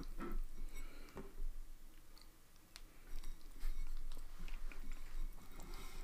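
A person chewing a mouthful of spicy instant noodles, with a few light clicks of chopsticks against a glass bowl.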